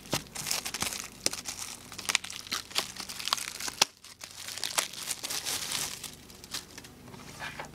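Clear plastic shrink wrap being torn and peeled off a Blu-ray/DVD case, crinkling and crackling in quick irregular snaps, with a brief pause about four seconds in.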